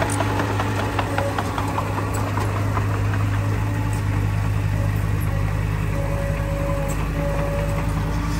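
Heavy diesel engine of earthmoving machinery running steadily at an even speed, with a few faint clicks.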